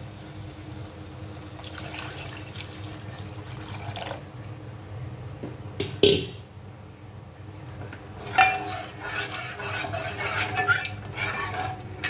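Water poured into a metal pot of fried masala, then a steel ladle stirring the thin gravy, knocking and scraping against the pot, with one sharp clank about six seconds in.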